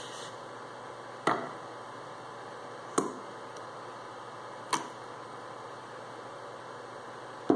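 Metal parts of a disassembled starter motor, the drive-end housing and the solenoid, clicking and knocking as they are handled and separated: three sharp clicks about a second and a half apart, and a fourth near the end, over a steady hiss.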